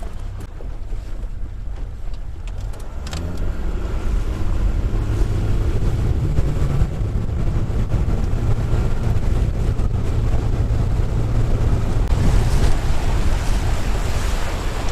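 Boat motor running, throttled up about three seconds in, so its pitch rises and it gets louder as the boat gets under way. Wind and water hiss build toward the end.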